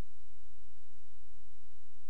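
Faint steady hiss with a low electrical hum, with no other sound: the recording's own background noise.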